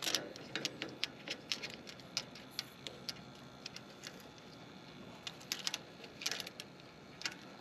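Small metal clicks and clinks of brass refrigerant fittings being handled and threaded together, as an access tee and a pressure probe are fitted onto an AC condenser's service port. The clicks come in an irregular series, busiest about three-quarters of the way through.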